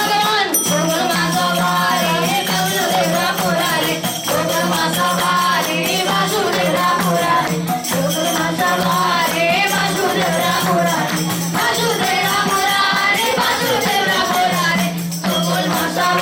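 Nepali devotional bhajan music: a melody over a steady low drone, with jingling hand percussion keeping time.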